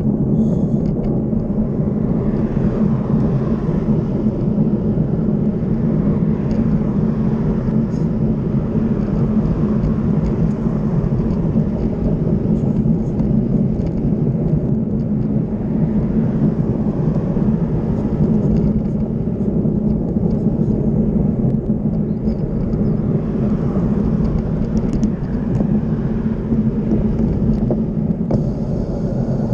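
Steady wind rush and tyre rolling noise on a handlebar-mounted camera as a bicycle rides along a paved cycle path, with cars now and then passing on the road alongside.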